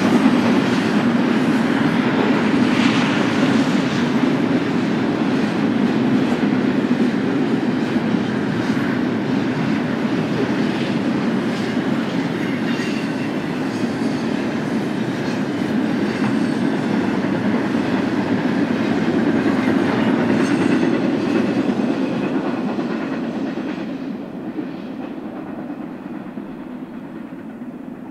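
Double-stack intermodal freight train's container well cars rolling past, steel wheels clicking over the rails with a steady rumble. The sound fades away near the end as the last car goes by and recedes.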